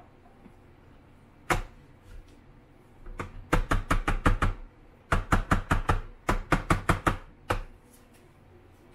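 Plastic film developing tank knocked repeatedly against a plastic tray during development: a single knock, then three quick runs of sharp knocks at about seven a second, and one last knock.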